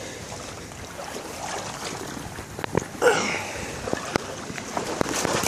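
Footsteps and rustling through brush on a wet creek bank, with several sharp snaps from about halfway through, over a steady hiss.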